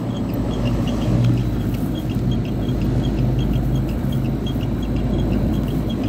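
Carrier rooftop HVAC unit running: a steady mechanical hum and rumble.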